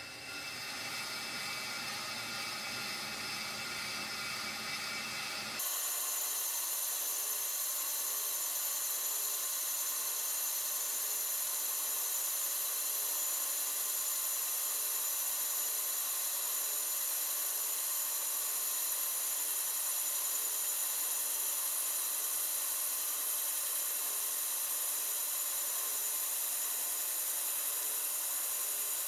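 Pro-Cut on-car brake lathe spinning a brake rotor while its cutters take one deep single-pass cut across the rotor faces: a steady metal-cutting scrape with a whine. About six seconds in the sound abruptly turns thinner and brighter, then holds steady.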